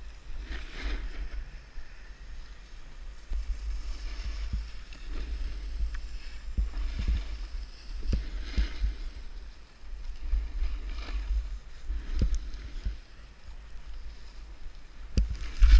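Snowboard sliding and carving on snow, with wind buffeting the body-mounted camera's microphone: a steady low rumble with swishes of snow each time the board turns. A few sharp, loud knocks near the end.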